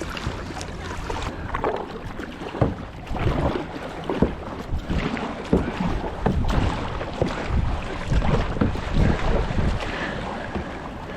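Kayak paddle strokes splashing in the water, one after another in an uneven rhythm, with wind buffeting the microphone.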